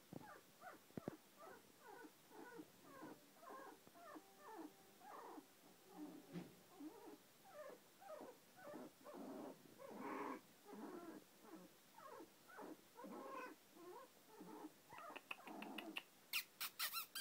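Young puppies whining and whimpering: a faint, continuous run of short high cries, two or three a second, louder near the end.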